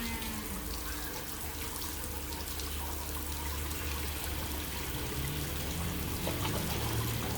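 Water trickling and pouring steadily in a penguin pool.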